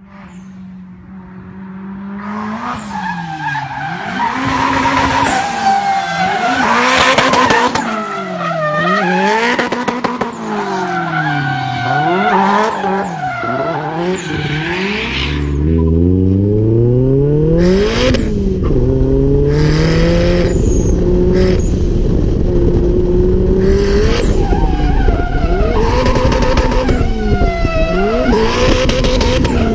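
Turbocharged Nissan SR20DET four-cylinder race engine revving hard, its pitch climbing and dropping again and again. About halfway through it rises from low into a loud, steady run under full load.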